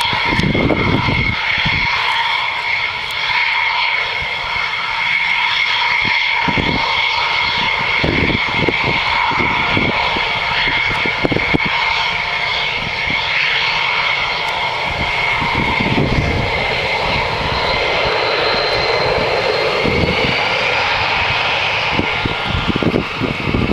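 F-16 fighter jet engines running at high power for takeoff: a steady jet roar with a high turbine whine and irregular low rumbles. Near the end a higher whine rises in pitch.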